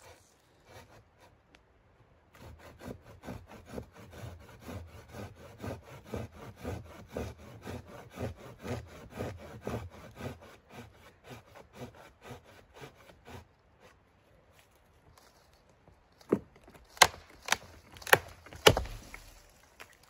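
Wood being sawn by hand, an even run of quick back-and-forth strokes that stops after about eleven seconds. Several sharp, loud cracks follow near the end.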